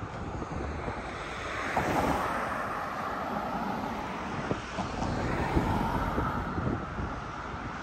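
Steady rushing outdoor noise of wind on the microphone mixed with road traffic, swelling about two seconds in, with scattered low buffets.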